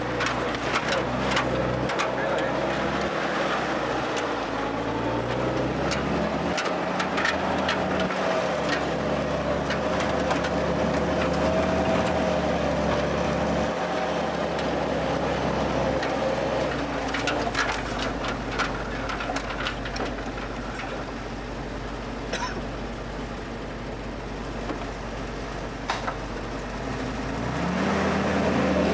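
1948 Willys Jeep's four-cylinder flathead engine running at low speed on a rough trail, its pitch shifting up and down and rising near the end, with scattered knocks and rattles.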